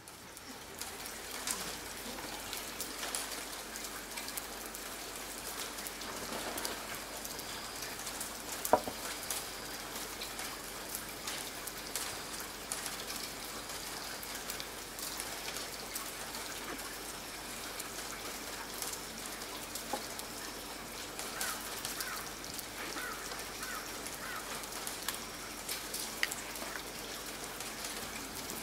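Light rain falling: a steady hiss with scattered drop ticks, one sharper tap about nine seconds in, and a few short high chirps a little after twenty seconds.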